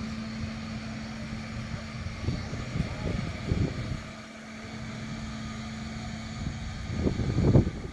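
Steady mechanical hum with a constant low drone from the lock bridge's drive machinery as the bridge opens; the drone cuts off about seven seconds in. Wind buffets the microphone throughout, hardest near the end.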